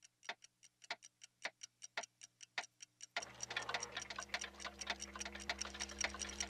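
Clock ticking, about four quick ticks a second, alternating stronger and weaker. About three seconds in a steady low hum comes in under the ticking.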